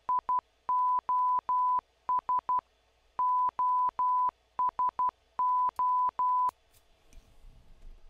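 Computer-generated 1 kHz sine-wave beeps keying out Morse code: three short, three long, three short, three long, three short, three long (S-O-S-O-S-O), with a faint click at the start and stop of each tone. The beeping ends about six and a half seconds in.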